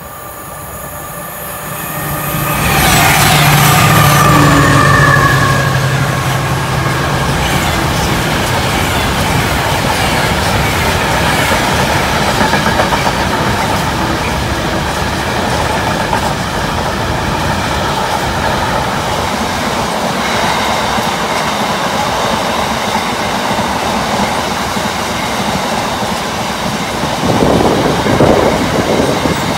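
Freight train passing close by at speed. A low hum swells and fades over the first few seconds as the head of the train goes by. Then comes the steady rumble and rattle of a long rake of loaded hopper and box wagons on the rails, with faint high wheel squeal from about two-thirds of the way through.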